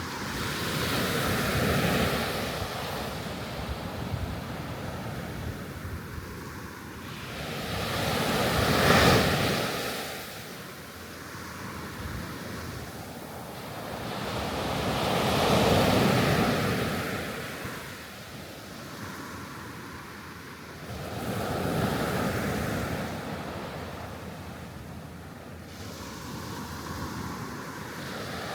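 Sea waves washing onto the shore, surging and drawing back about every six or seven seconds, with the loudest wave about nine seconds in.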